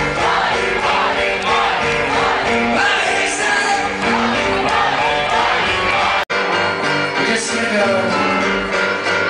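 Live rock band playing loudly, a male singer singing over guitars, with a sudden split-second dropout in the sound a little after six seconds in.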